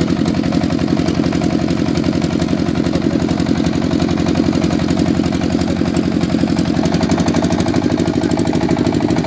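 A boat's motor running steadily with a fast, even putter, heard from on board as the boat moves along the river.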